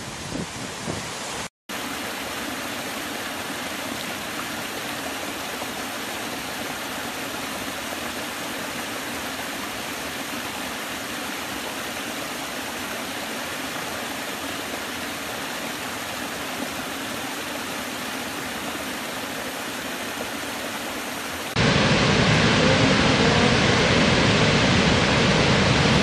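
Waterfalls rushing. After a brief dropout to silence about a second and a half in, a small cascade gives a steady, even rush of falling water. Near the end it cuts to a louder, fuller rush from a large waterfall.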